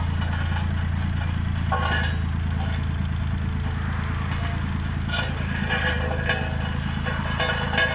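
A road roller's engine running steadily at a low idle-like pitch, with scattered clicks and clanks over it.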